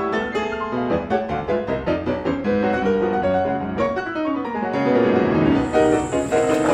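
Background music: piano playing a quick run of notes.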